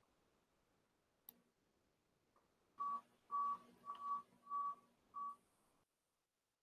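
A single faint click, then five short electronic beeps at one steady pitch, about two a second.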